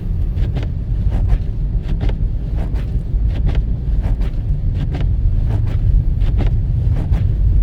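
Inside the cabin of a 2018 Mitsubishi Outlander Sport driving slowly on a snow-covered highway: a steady low road and tyre rumble with scattered irregular clicks.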